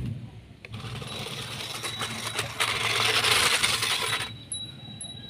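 Toy RC monster truck's electric motor and gears whirring as its tyres crunch over gravel, loudest a few seconds in as it passes close. After about four and a half seconds the driving sound fades and a few light chime tones ring over a steady high tone.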